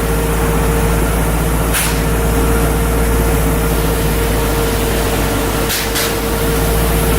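Steady machinery noise with a constant hum and a held mid-pitched tone, broken by a short sharp hiss or click about two seconds in and two more near the end.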